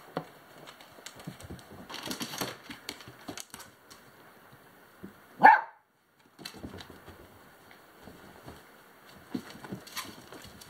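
Alaskan husky giving one short, sharp yelp about halfway through, amid scattered scuffling and rustling as the mother and her weaning-age puppies tussle over nursing.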